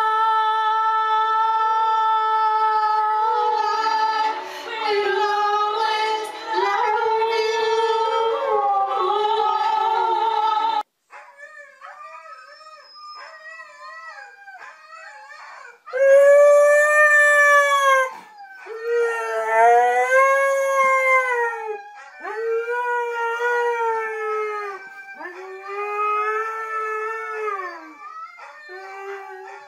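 Huskies howling. First comes one long, held, wavering howl. After a break about 11 s in, a second husky makes soft short whines, then from about 16 s a series of loud arching howls, each one to two seconds long.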